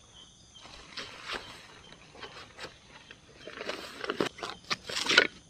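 Rummaging through gear inside a tent: rustling and scraping of bags and fabric, getting louder and busier over the last two seconds.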